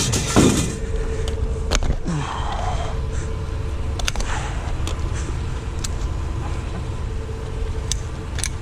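Vehicle engine idling with a steady low rumble and hum, with a loud knock and clatter about half a second in and several sharp clicks and knocks after it, like items being handled and loaded.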